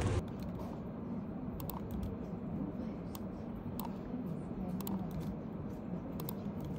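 Scattered, irregular clicks of a laptop keyboard and computer mouse over a steady low room hum.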